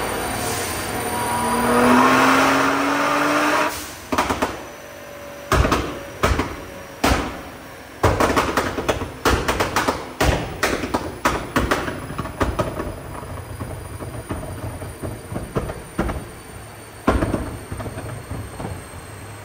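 Nissan R35 GT-R's twin-turbo 3.8-litre V6 on a chassis dyno, revving up for about four seconds, then the throttle is cut and the exhaust backfires: a string of loud bangs, a rapid burst of crackling pops, and one more bang near the end, shooting flames from the exhaust.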